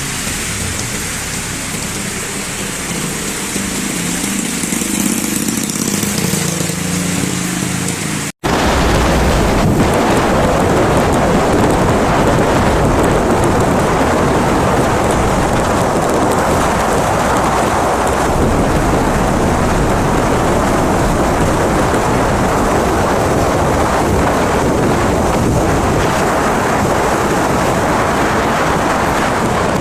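Heavy tropical rain pouring down in a steady, dense hiss. A brief dropout about eight seconds in is followed by a louder, fuller downpour.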